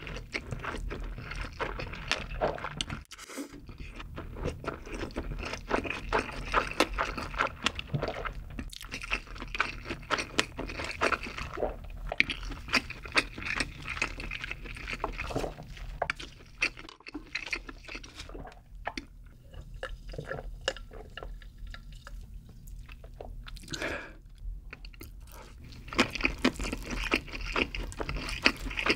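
Close-miked chewing of a mouthful of food: a steady run of many small mouth clicks, thinning out for a few seconds after the middle and picking up again near the end.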